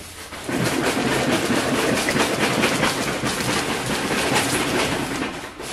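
Foam packing scraping and rubbing against the cardboard box as it is worked loose and pulled out. It is a dense, rattly scraping that starts about half a second in and stops near the end.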